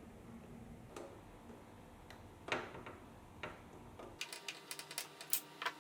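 Scattered small clicks and taps, three spaced about a second apart, then a quick run of many light clicks in the last second and a half.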